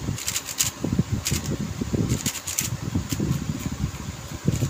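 A new YJ MGC 4x4 speedcube being turned by hand: plastic layers clacking in quick bursts of turns, with brief pauses between them.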